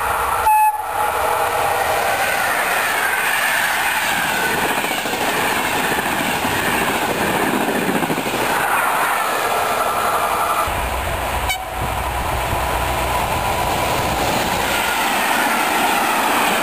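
Electric passenger train passing at speed: rushing wheel-on-rail noise with a falling whine as it goes by. About twelve seconds in, the sound changes abruptly to a freight train of open box wagons rolling past close, with a low rumble and clickety-clack.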